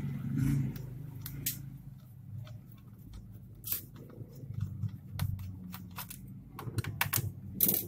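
Scattered sharp clicks and light scrapes of a small screwdriver and plastic parts against an Asus A43S laptop's plastic bottom case, over a low steady hum.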